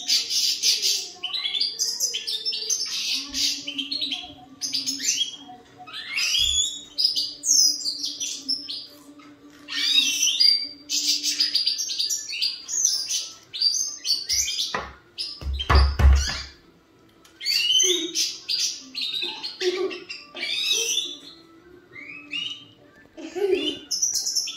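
European goldfinch of the large 'major' subspecies singing: phrases of quick twittering, buzzy and gliding notes, with short pauses between them. About sixteen seconds in there is a brief cluster of loud knocks.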